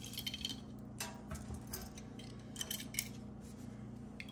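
Metal costume jewelry clinking and clicking lightly as pieces are picked up and handled: a scatter of small, faint clicks.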